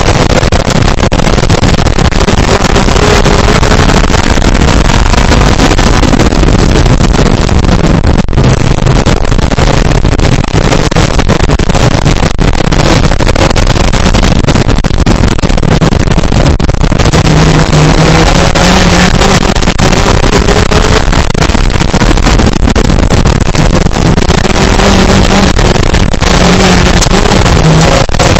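Off-road buggy engine being driven hard, its pitch rising and falling as it revs up and eases off, under a heavy even noise of wind and running gear. Very loud throughout.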